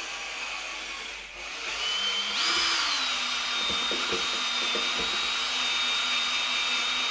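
Electric drill with a mixing paddle stirring two-part epoxy floor primer, a three-minute mix. The motor speeds up about two seconds in, its whine briefly peaking, then runs at a steady high pitch, with a few light knocks in the middle.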